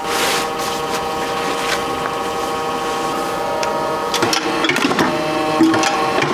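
Cloth swishing as a sheet of printed fabric is spread onto the bed of a clicker die-cutting press, over the steady hum of the press's motor. From about four seconds in, light knocks and clicks as the metal cutting die is set down and shifted on the fabric.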